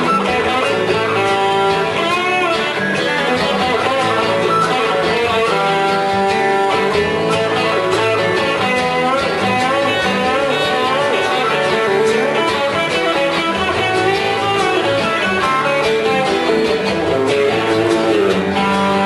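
Live country band playing an instrumental passage on electric guitars: a Telecaster-style electric and an acoustic-electric, with lead lines that bend in pitch over strummed rhythm guitar.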